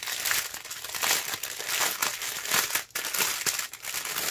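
Clear plastic bags of rhinestone diamond-painting drills crinkling as hands handle and flip through a strip of them: an uneven, crackly rustle with many small irregular clicks.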